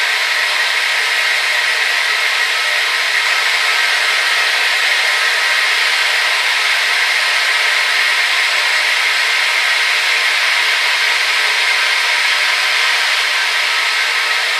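Hair dryer running steadily: an even rush of blown air with no deep rumble, strongest in the upper middle, with a faint steady whine from the motor.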